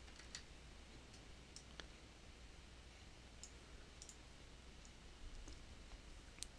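Faint computer mouse clicks, about eight single clicks spread out, over a low steady hum.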